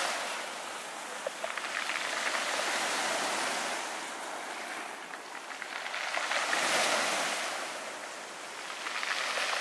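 Small waves washing up a beach of rounded pebbles and drawing back, the stones rattling and clattering in the backwash. The sound swells and fades with each wave, about three times.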